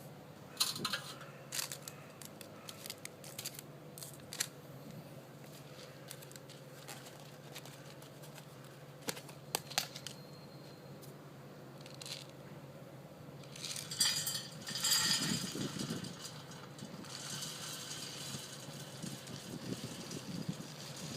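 Small objects being handled: scattered clicks and taps, then a burst of crinkly rustling about fourteen seconds in followed by a steady hiss, over a faint low hum.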